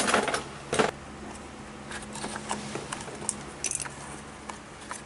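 Light clicks, taps and rattles of hands handling a cartridge oil filter and its plastic housing cap, with a few sharper clicks in the first second, over a faint steady hum.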